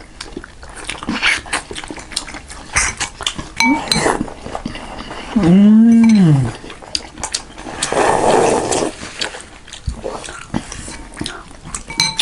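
Close-up eating sounds: chewing, slurps of noodle soup and small clicks of spoon and bowl. Near the middle comes a loud, drawn-out voiced sound that rises and then falls in pitch.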